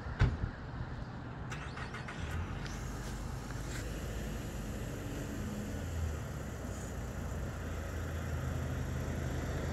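Outdoor background of a steady low rumble with a faint low hum. A sharp knock comes about a quarter of a second in, and a few faint clicks follow around two seconds in.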